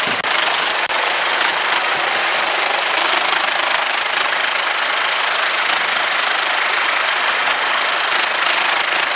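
Guimbal Cabri G2 helicopter's four-cylinder Lycoming piston engine and rotor system running steadily at a loud, even level, with two brief dropouts in the sound within the first second.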